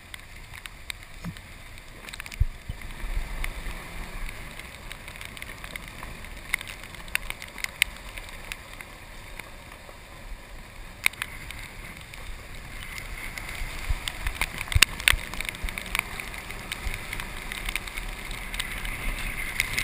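Golf cart driving along a wet road: tyres hissing through water, with many short knocks and rattles over bumps. The sound grows louder over the second half.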